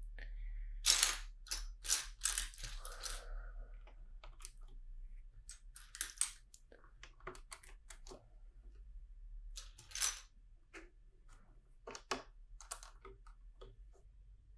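Small hard plastic LEGO pieces clicking and clattering as they are handled and pressed together, in irregular bursts of sharp clicks, busiest in the first few seconds.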